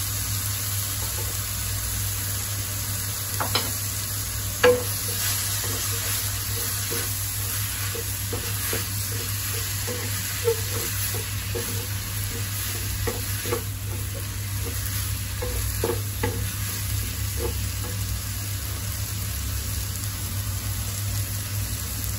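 Chopped spinach and fenugreek leaves sizzling in a hot nonstick pan of masala while a wooden spatula stirs them, with scattered taps of the spatula against the pan. A steady low hum runs underneath.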